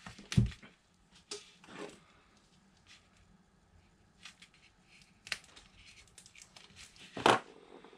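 Plastic shrink-wrap on a wallpaper roll being picked at and scored with a craft knife: scattered small clicks and crinkles, a thump just after the start and a louder short noise about seven seconds in.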